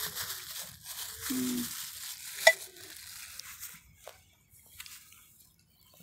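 A cat eating soft food close by: wet chewing and smacking in quick little crackles, thinning out after about three and a half seconds. A short low hum comes just over a second in, and a single sharp click about two and a half seconds in is the loudest sound.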